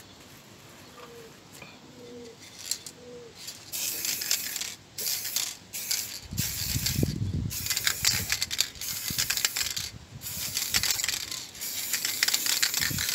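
Aerosol spray can of black satin paint hissing in several bursts with short breaks, starting about four seconds in; the can is almost empty. A low rumble comes in briefly near the middle.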